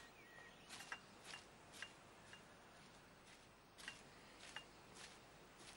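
Faint footsteps, short clicking steps about two a second: four, a pause of about a second and a half, then four more.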